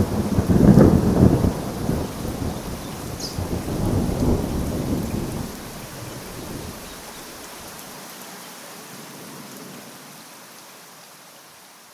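A thunderclap that breaks suddenly, rumbles heavily with a second swell about four seconds in, then rolls away and fades slowly, over steady rain.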